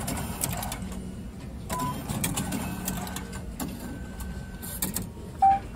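Automatic betting-ticket vending machine printing a ticket: its printer mechanism clicking rapidly over a steady mechanical whir.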